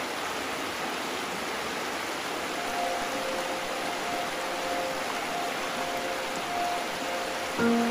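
River water rushing steadily. Faint music comes in about three seconds in and grows louder just before the end.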